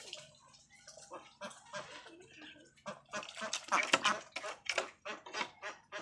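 A group of domestic ducks quacking, with scattered calls at first and then a quick run of loud quacks about halfway through.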